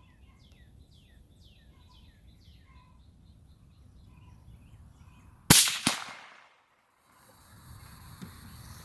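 Suppressed shot from a Remington 700 .308 bolt-action rifle fitted with an Aero Precision Lahar suppressor, a sharp report about five and a half seconds in with a second crack a few tenths of a second later. Small birds chirp in quick falling notes before the shot.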